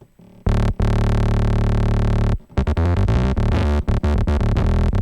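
Reveal Sound Spire software synthesizer playing a distorted, tube-driven bass patch. There is one long held note, then a quick run of short notes from about halfway.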